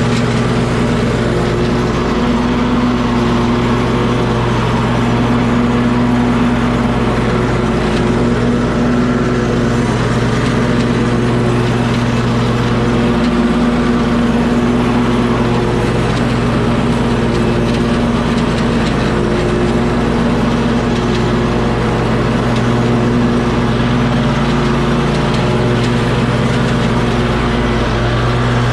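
An engine running steadily at a constant speed, with an even, unchanging pitch.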